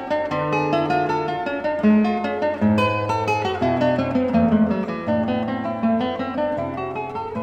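Background music: acoustic guitar playing plucked notes over a bass line that changes every half second or so.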